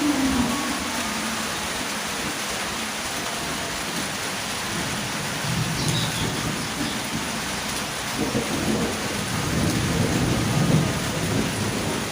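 Steady rain falling, a dense even hiss, with low rumbles of thunder swelling in the second half.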